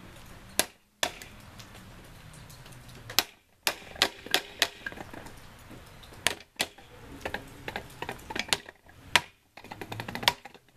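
A claw hammer tapping the lid down onto a quart-sized metal paint can: a series of sharp, irregular metallic strikes, some harder than others, with short pauses between them.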